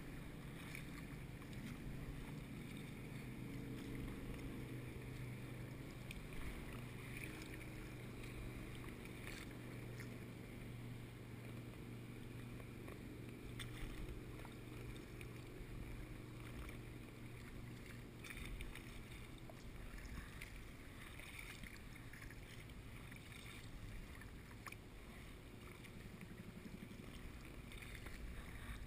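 Faint on-the-water sound from an inflatable kayak: a steady low hum with light water lapping and a few soft knocks.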